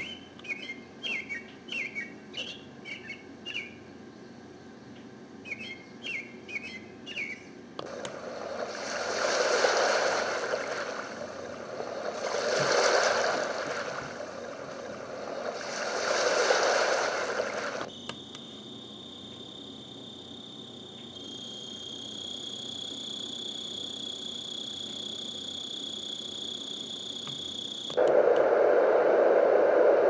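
Small NURSAL white noise machine playing its recorded nature tracks through its little speaker, switched from one track to the next. First short runs of bird chirps, then three slow swells of ocean waves, then a steady high summer-night insect drone that steps up in pitch partway through, and near the end the wind track's loud, steady rushing noise. Each change comes abruptly with a faint button click.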